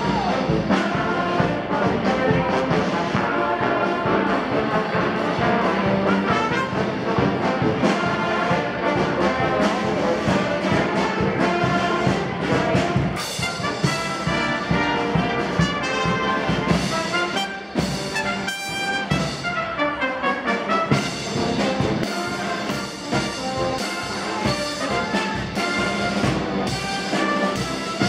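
Live marching band playing: trumpets and a sousaphone carry the tune over a steady beat on snare drum and bass drum.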